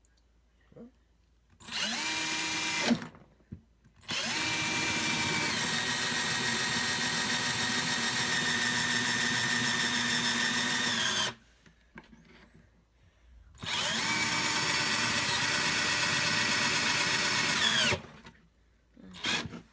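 Electric drill boring a hole, run in three bursts: a short one, then a long one of about seven seconds, then another of about four seconds. Each burst spins up at the start and winds down when the trigger is released.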